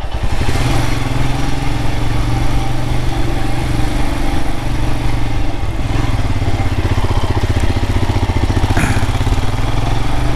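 Royal Enfield Himalayan's single-cylinder engine running steadily while riding, its firing pulses heard as a continuous low thrum. A short, higher sound cuts in briefly about nine seconds in.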